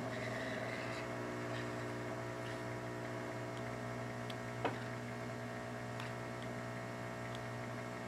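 Heat gun running steadily: an even electric hum with a light hiss of blown air, as it shrinks heat-shrink tubing over a freshly soldered connector joint. A single small click about halfway through.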